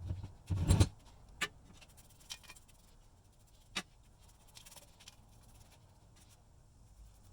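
Scattered sharp clicks and knocks of metal parts and tools being handled on a workbench: a short clatter of knocks about half a second in, then single clicks about a second or two apart.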